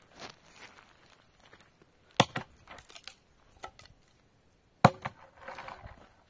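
Two hard blows about two and a half seconds apart, each followed by a few lighter knocks and clatter.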